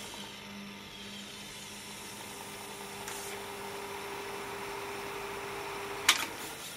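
Revox C270 reel-to-reel tape recorder fast-winding tape between plastic reels: a steady whir from the spooling motors with a faint hum. A sharp clunk about six seconds in.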